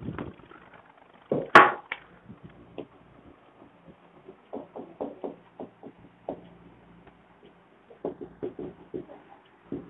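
Whiteboard marker writing on a whiteboard: clusters of short rubbing strokes as letters are written, about four seconds in and again near the end. A sharp clack about one and a half seconds in is the loudest sound, and a faint steady hum runs underneath.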